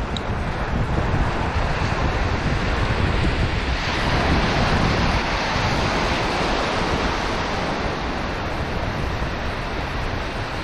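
Shallow surf washing and breaking around the wading angler, with wind buffeting the microphone; the wash swells louder about four seconds in.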